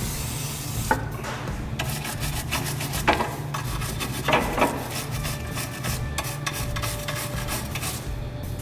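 Wire brush scrubbing rusty metal suspension parts, cleaning them: a run of quick, uneven scratching strokes with a few harder ones.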